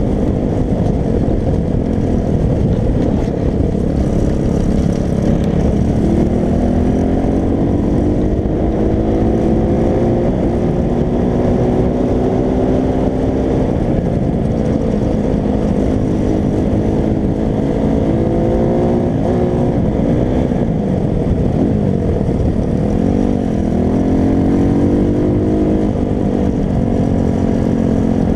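Loncin 250 cc single-cylinder four-stroke pit bike engine under way, its pitch climbing steadily as it pulls through the gears. Near the end the throttle is twice shut and opened again, the note dropping sharply and rising back.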